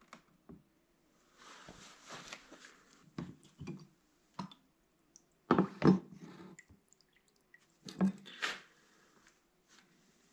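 Liquid sloshing and dripping in a plastic tub of dilute nitric acid as a forged iron spearhead on a wooden stick is moved through and lifted out of the etching bath. There are a few short splashes, the loudest about halfway through and again about eight seconds in.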